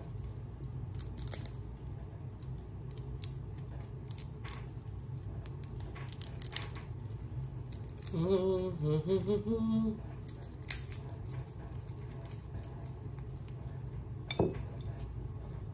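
Dried sage leaves crumbled and snapped between fingers, giving scattered small dry crackles over a steady low hum. A brief murmured voice comes about eight seconds in.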